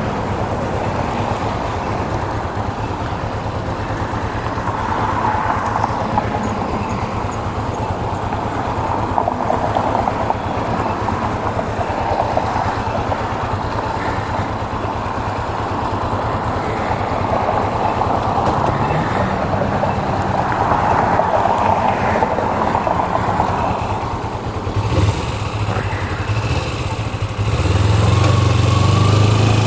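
Motorcycle engine idling at a standstill while road traffic passes, with the hiss of the passing cars swelling and fading. Near the end the engine revs up and gets louder.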